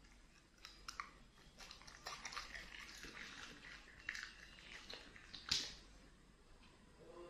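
A dog chewing a piece of fried tofu-skin spring roll: a run of crunches and wet mouth clicks, the loudest about five and a half seconds in.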